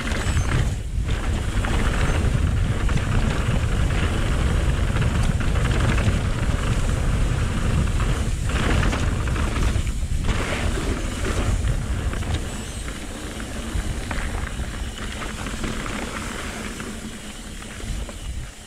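Wind buffeting the microphone and mountain-bike tyres rolling and rattling over a dirt trail on a fast descent, a steady heavy rumble that eases off over the last several seconds.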